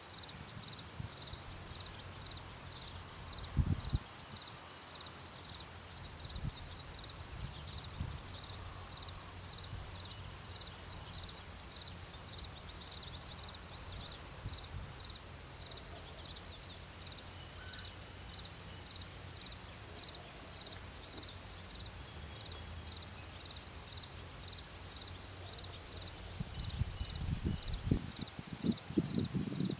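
Chorus of insects, crickets or katydids, chirping in a steady high-pitched pulse about three times a second, over a low outdoor rumble with a few low thumps near the end.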